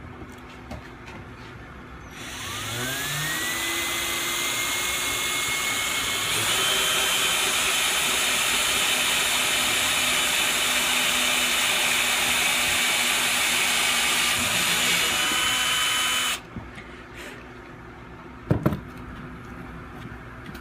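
Power drill running on PVC, spinning up with a rising whine about two seconds in, stepping up to a higher speed around six seconds, then running steadily until it stops abruptly near the end. A couple of short knocks follow.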